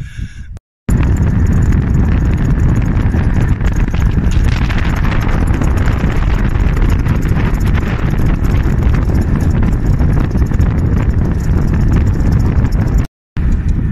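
Loud wind buffeting on the microphone of a moving solar recumbent trike, a dense low rumble with a hiss above it. It cuts out briefly just after the start and again near the end.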